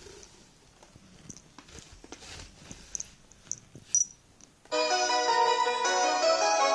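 Railway-themed alarm clock: a few faint clicks, then about two-thirds of the way in its alarm starts suddenly and loudly, playing an electronic ringtone-style melody.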